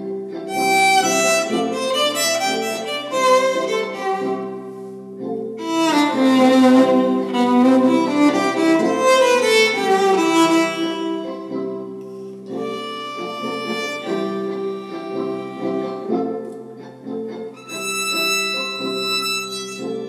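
A violin played with the bow: a melody with quick descending runs in the middle, over steady held lower notes.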